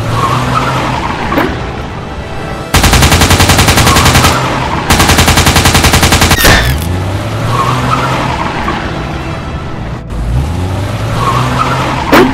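Action sound effects: a car engine revving up several times with tyres squealing, and two long bursts of automatic rifle fire, about three and five seconds in. A sharp bang comes near the end.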